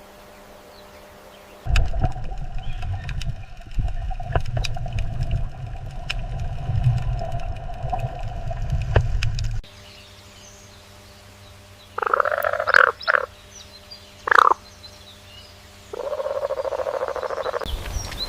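Frog croaking: a few short croaks, then a longer pulsed croak near the end. Before them comes a stretch of low rumbling noise with scattered clicks.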